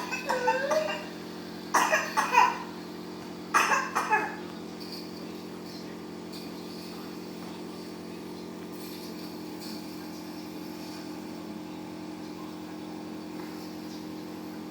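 A young child coughing, three short bouts of productive, wet cough in the first few seconds: mucus being loosened by inhaled hypertonic saline for cystic fibrosis. A nebulizer compressor hums steadily underneath throughout.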